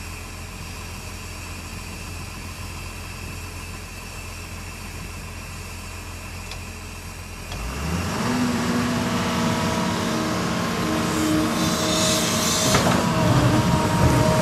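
Halla HE220LC excavator's Cummins diesel engine running steadily at idle, then louder about eight seconds in as it picks up, with steady whining tones from the Kawasaki hydraulic pumps. A single sharp knock near the end.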